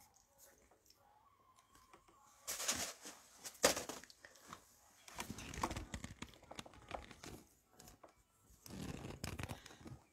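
Rustling and crinkling handling noises in four short bursts, the sharpest about three and a half seconds in.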